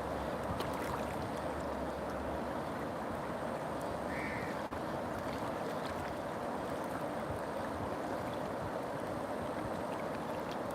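River water running in a steady, even rush, with a brief faint high note about four seconds in.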